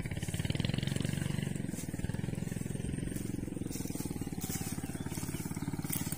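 Small engine running steadily, with a rapid, even pulse.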